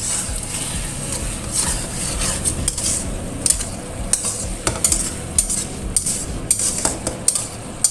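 Metal spatula stirring and scraping eggplant and chicken in a stainless steel wok, with the sauce sizzling over a raised flame. The spatula scrapes and knocks against the pan at irregular moments throughout.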